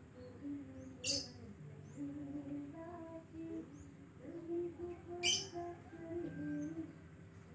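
A distant voice faintly singing a slow melody of held notes, with two short high chirps, one about a second in and one about five seconds in.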